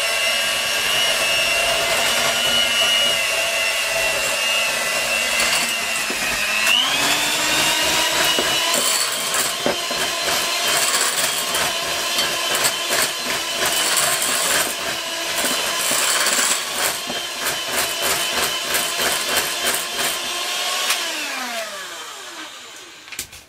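Electric hand mixer beating cake batter of flour, butter, sugar and eggs in a glass bowl, its motor whining steadily with the beaters clicking against the bowl. About seven seconds in it steps up to a higher speed, and near the end it winds down and stops.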